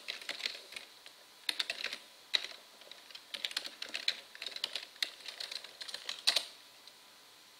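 Computer keyboard typing in several short runs of quick keystrokes, with one louder key strike just after six seconds in, after which the typing stops.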